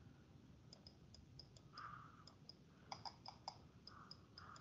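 Near silence, with faint scattered clicks and a few slightly louder clicks about three seconds in.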